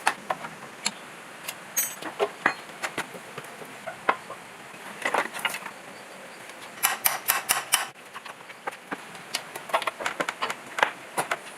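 Scattered sharp clicks and knocks, typical of metal tools being handled, with a quick run of about eight taps around seven seconds in.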